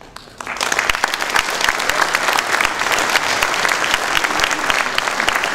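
Audience applauding, breaking out about half a second in and keeping up a dense clapping.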